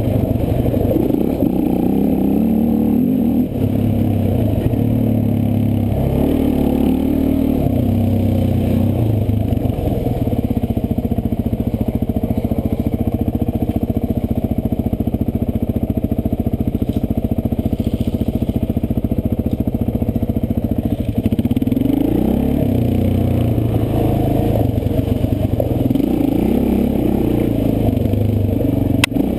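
Quad bike's engine, heard from on board while riding a dirt enduro trail, revving up and easing off in repeated surges, with a steadier stretch in the middle.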